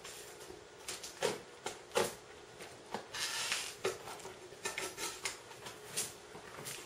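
Kitchen handling sounds: a scattered series of light clicks and knocks from utensils and containers, with a brief hiss about three seconds in.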